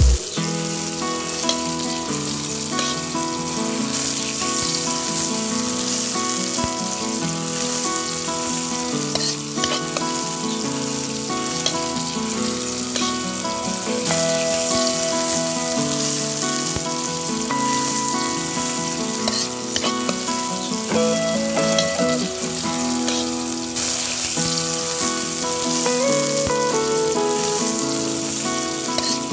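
Boiled eggs sizzling as they fry in oil in a small metal pot, with a spatula stirring them now and then.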